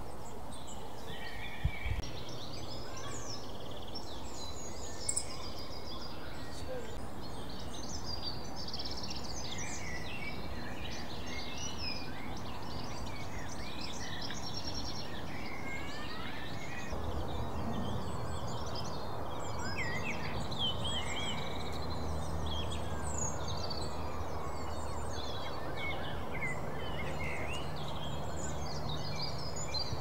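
Many songbirds singing and chirping over steady background noise. A low steady drone joins about halfway through.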